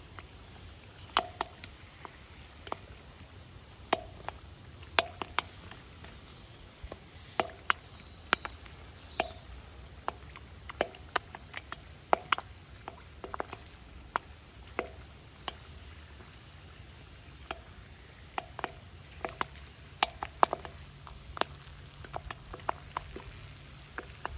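Popcorn kernels popping in hot oil in a cast-iron kazan: sharp, irregular pops, scattered one to a few a second, over a low steady rumble.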